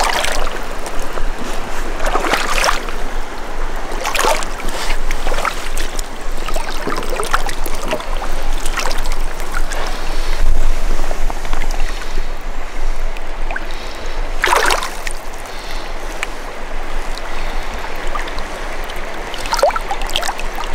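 Shallow mountain river flowing and lapping around hands held in the water, with a few splashes as a taimen is held in the current to be revived before release.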